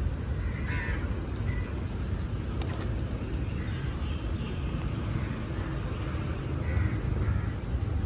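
Outdoor bird sound at a feeding flock of feral pigeons: a few short bird calls, about a second in and again in the second half, over a steady low rumble.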